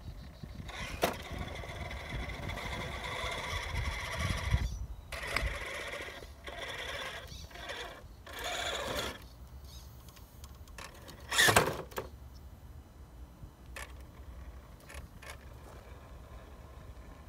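Hobbywing AXE 2300kV sensored brushless motor and geared drivetrain of a Redcat Gen8 Scout RC crawler whining as it crawls over rock, first steadily for a few seconds, then in short on-off bursts. A brief, louder burst of noise comes about eleven and a half seconds in, and a few faint clicks follow.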